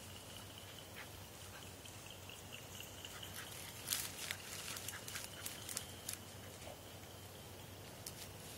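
Dry grass and brush crackling and rustling in a cluster of sharp snaps about four to six seconds in, over a faint steady high tone.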